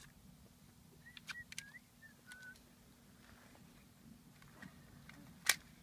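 Quiet outdoor shooting-range air with a low steady hum and a few short, high chirps about a second in, then a single sharp gunshot crack near the end, faint enough to be a distant shot.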